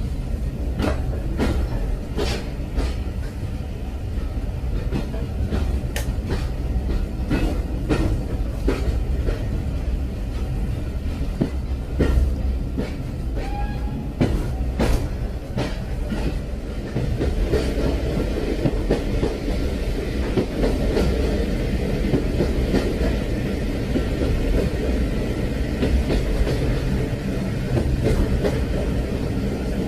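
Train running on the rails: a steady low rumble with irregular clicks of the wheels passing over rail joints. In the second half the clicks thin out and a steadier rushing sound comes up.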